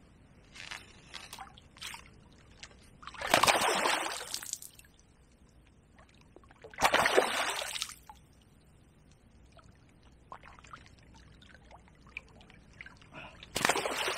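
Hooked tench thrashing at the surface as it is played to the landing net: a few small splashes, then two loud splashes about three and seven seconds in, and another starting near the end.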